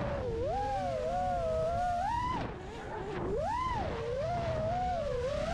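FPV racing quadcopter's brushless motors and propellers whining, the pitch rising and falling with the throttle. About halfway through the whine sags and gets quieter as the throttle is eased off, then climbs sharply as it is punched again.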